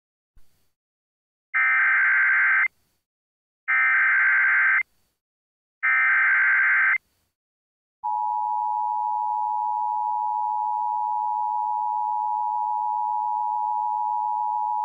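Emergency Alert System tones from a Sage Digital ENDEC sending a tornado warning. The SAME digital header sounds three times as raspy data bursts of about a second each, then about eight seconds in the steady attention tone begins and holds.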